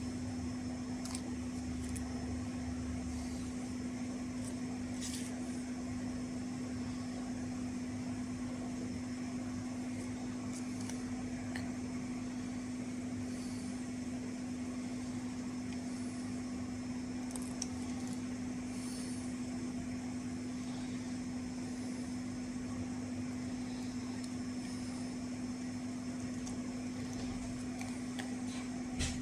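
A steady low hum holding one pitch, over a faint even hiss, with a few faint light clicks.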